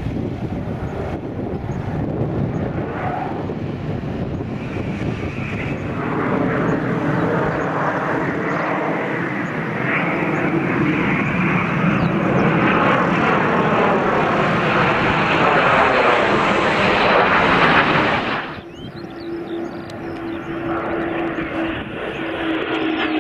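Eurofighter Typhoon's twin EJ200 turbofan engines as the jet flies overhead, a broad jet noise building steadily to its loudest and then cutting off sharply. A fainter jet sound follows, with a steady drone that dips in pitch near the end.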